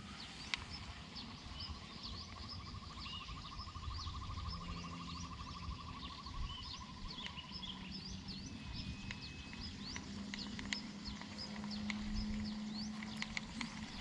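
Small birds chirping on and off in outdoor ambience. A rapid buzzing trill runs for about five seconds near the start, and a faint low hum comes and goes over a low rumble.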